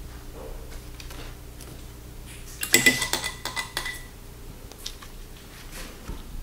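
Art materials handled on a desk: a cluster of sharp clinks and clatter of hard small objects about two and a half seconds in, one with a short ringing note, over a faint steady room hum.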